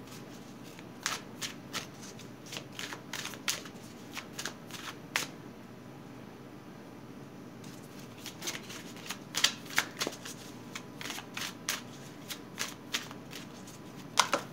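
A tarot deck shuffled by hand: quick, uneven runs of card flicks and slaps, pausing for about two seconds midway before picking up again.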